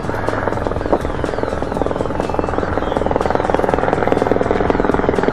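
Black Hawk-type helicopter flying overhead, its main rotor chopping in a rapid, even beat that grows gradually louder as it comes closer.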